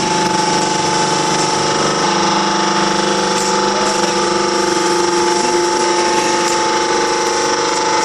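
Hydraulic power unit of a drum press, an electric motor driving the pump, running steadily with a whine of several held tones over a hiss. The tones shift slightly about two seconds in.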